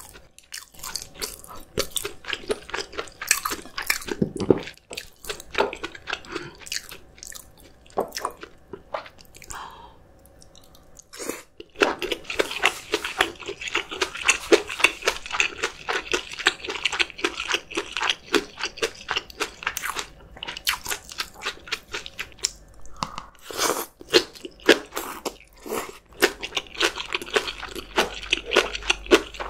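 Close-up eating sounds: crisp, rapid crunching and chewing, with a quieter pause about a third of the way in before it picks up again.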